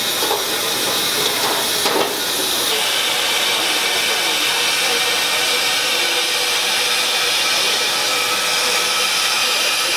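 Steady hissing kitchen noise, growing a little brighter about three seconds in, with a few light clicks in the first two seconds and faint voices in the background.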